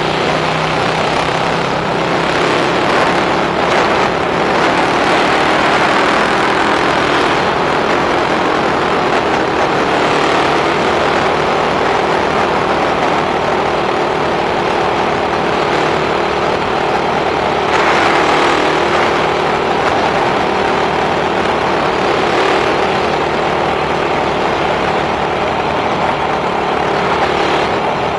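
Suzuki Raider 150 carburetted motorcycle running steadily on the road, its engine hum mixed with steady road and wind noise.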